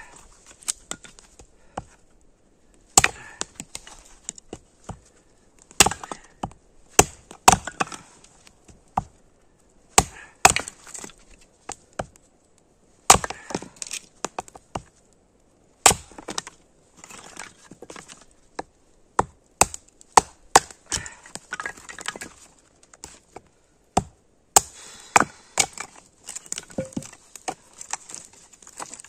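Frozen firewood being split into kindling: sharp wooden knocks and cracks at irregular intervals of one to three seconds, with lighter clatter of sticks between them.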